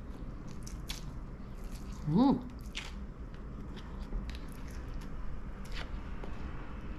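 Someone chewing and biting into food close to the microphone, with scattered short crunching clicks. A brief voiced hum about two seconds in is the loudest sound.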